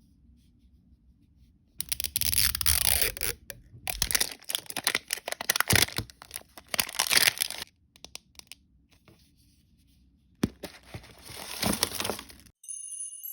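Blind-bag packaging being torn open and crinkled in two long spells with a pause between. A chiming jingle starts just at the end.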